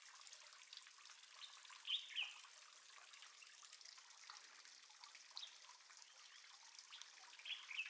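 Near silence: a faint hiss, with two brief faint high chirps, one about two seconds in and one near the end.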